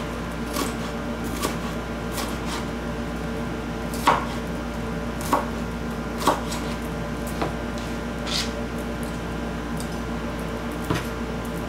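Kitchen knife chopping green pepper on a plastic cutting board: sharp, irregular knocks of the blade on the board, roughly one a second. A low steady hum runs underneath.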